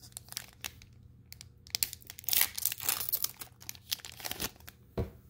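Digimon Card Game booster pack's foil wrapper crinkling and tearing as it is opened by hand: a run of irregular crackles, loudest about two to three seconds in.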